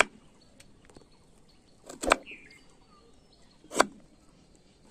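Kitchen knife chopping green guava on a wooden cutting board: a few sharp knocks of the blade against the board, a double one about two seconds in and another near four seconds, with faint ticks between.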